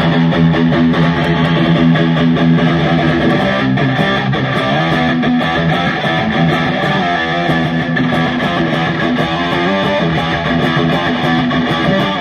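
Electric guitar played through the Bad Cat Siamese Drive overdrive pedal with both of its overdrive circuits switched on and stacked (cascaded), giving a thick crunching distortion. Chords and riffs are picked continuously, with sustained ringing notes.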